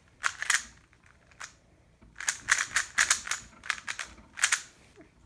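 Rubik's cube layers being turned fast: quick runs of plastic clicks and clacks in bursts, densest in the middle.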